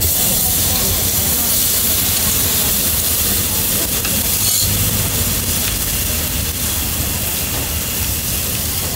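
Ham slices and egg-topped scallion pancakes sizzling on a hot flat-top griddle: a steady hiss over a low hum.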